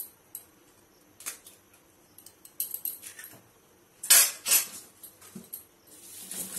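An egg being tapped and cracked on the rim of a stainless steel mixing bowl: a series of sharp metallic taps and clinks, the loudest ones about four seconds in.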